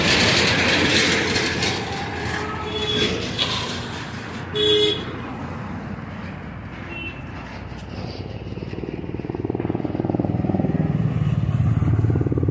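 Road traffic running past, with one short vehicle horn toot about four and a half seconds in. In the second half a rapidly pulsing engine, like a motorcycle's, grows louder and closer.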